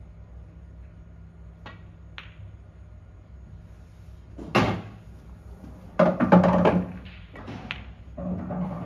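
Pool balls in play on a pool table: two light clicks of cue and ball contact, then a loud knock about four and a half seconds in, and from about six seconds a rattling clatter of balls knocking together, with a few smaller knocks after.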